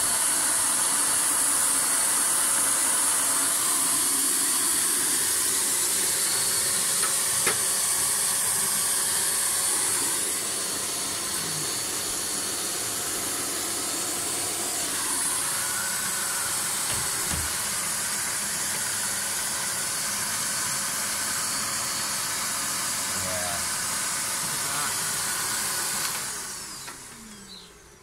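Bee vacuum, a vacuum-cleaner motor used to suck live bees off the comb, running with a steady hissing rush and a faint steady hum. It drops a little in level about ten seconds in and winds down near the end.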